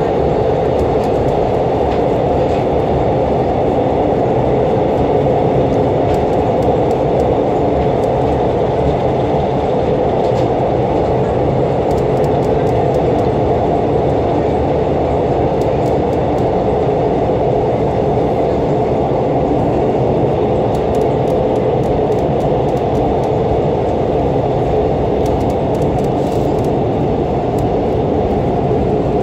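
Cabin noise of a Korail Mugunghwa-ho RDC diesel railcar running between stations: a steady low drone of engine and wheels on the track.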